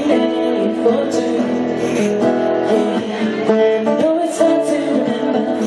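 Music led by an acoustic guitar playing chords.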